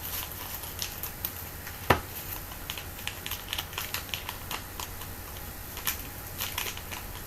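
Trading cards and card packs being handled: a run of light clicks and taps, with one sharper tap about two seconds in.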